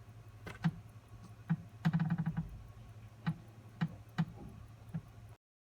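Small sharp clicks and taps of metal tools and parts on a pocket watch movement being assembled, irregular, with a quick run of clicks about two seconds in, over a steady low hum. The sound cuts off near the end.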